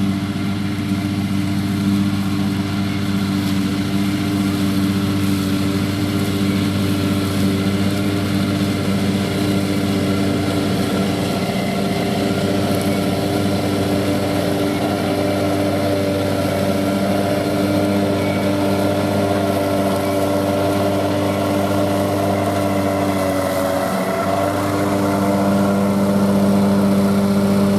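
BCS 749E walk-behind tractor's engine running steadily under load as it drives a 38-inch finish mower cutting and bagging tall grass. About 24 seconds in, the engine note dips briefly, then picks up and grows a little louder toward the end.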